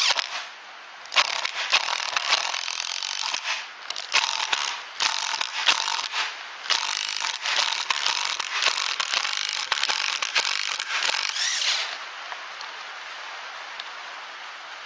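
Power driver driving a stainless steel decking screw into hardwood with no pilot hole. It runs in a series of bursts with short pauses, with a brief rising whine just before it stops about twelve seconds in, when the screw snaps off.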